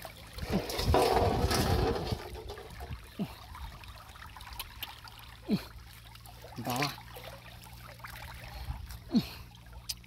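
Wet mud and muddy water sloshing and trickling under hands digging around a buried freshwater mussel. It is loudest in the first two seconds, then quieter with a few small wet squelches.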